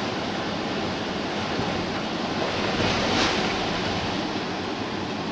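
Hurricane wind rushing steadily outside, with a gust swelling about three seconds in.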